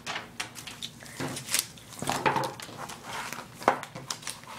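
Rustling and light knocks as a paper magazine is taken and handled on a wooden table, mixed with the scrape and bump of a phone being moved about.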